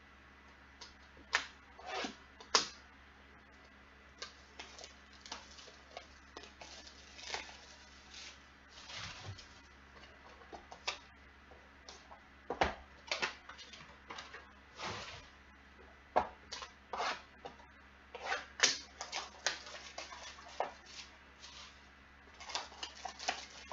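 Plastic shrink wrap being torn and crinkled off a cardboard trading-card box, with the box being handled; irregular crackles and rustles, some sharp and loud, a few per second.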